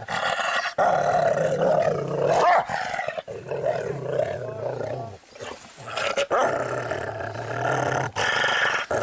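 Dog growling aggressively in a series of long, drawn-out growls, each broken off by a short pause for breath.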